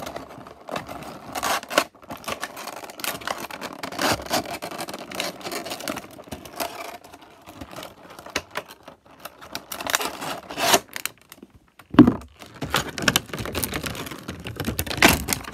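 Unboxing noises: a cardboard bobblehead box being opened and handled, and the clear plastic bag around the figure crinkling, in irregular rustles and scrapes, with a sharp knock about twelve seconds in.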